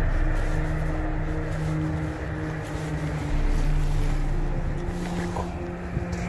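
Motor vehicle engine running with a steady low hum over a low rumble.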